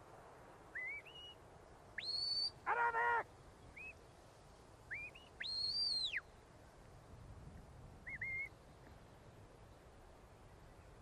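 Sheepdog handler's whistle commands to a working dog: two long high whistles that rise, hold and drop, about two seconds in and again around five and a half seconds in, with short rising chirps scattered between. A brief pitched call sounds about three seconds in.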